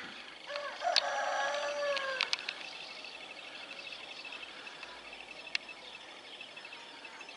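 A rooster crowing once, starting about half a second in: a drawn-out call of under two seconds that drops in pitch at the end. Under it runs a faint, rapid, steady high chirping, with a few sharp clicks.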